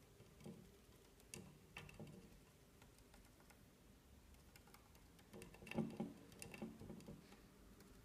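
Faint, irregular clicks and taps from a budgerigar's beak and feet on an aluminium beer can and a wooden tabletop, with a busier run of taps after about five seconds.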